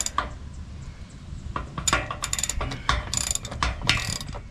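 Hand socket ratchet clicking in several quick runs of strokes as a nut is turned on a boat trailer's frame.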